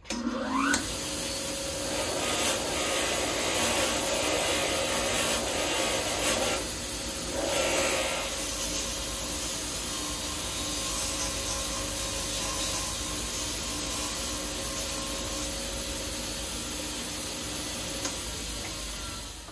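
Bench grinder with a wire wheel starting up, its motor whine rising as it spins up, then running at a steady whir. Steel pliers are pressed against the wire wheel, making a rough scratching, rougher and louder in the first eight seconds or so. The wire brushing strips the dark coating left on the steel by an Evapo-Rust soak.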